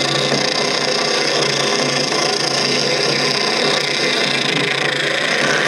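Craftsman bandsaw, converted for metal by slowing the blade through a gear reduction box, cutting 1/8-inch mild steel under light feed pressure: the blade runs steadily through the steel.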